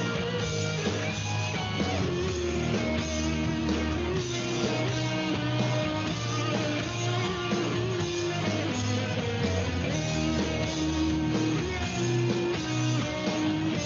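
Guitar being played: plucked and strummed notes and chords, changing every second or so.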